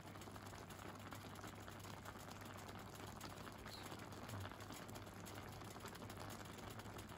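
Broth heating in an electric hot pot: a faint, steady crackle of small bubbles over a low steady hum.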